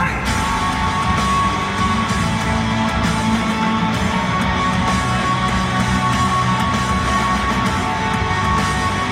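A live rock band playing loudly and steadily, with electric guitar to the fore and no singing.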